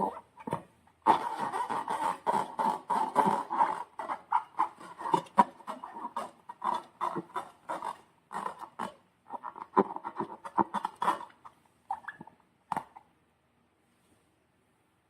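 Slime being squished and worked by hand, a rapid, irregular run of crackles and sticky pops that stops about 13 seconds in.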